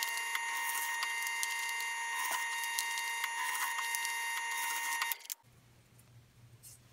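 WEN drill press motor running at speed with a steady whine, cutting off abruptly about five seconds in.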